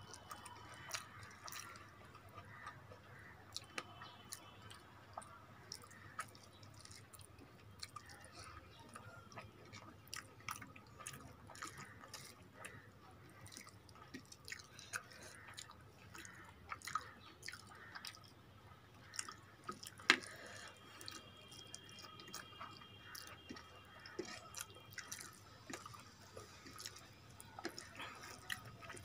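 Close-miked wet chewing and mouth clicks of a person eating rice and fish curry, with soft squishing as the rice and curry are mixed by hand on the plate. The small wet clicks keep coming irregularly, one sharper click about twenty seconds in.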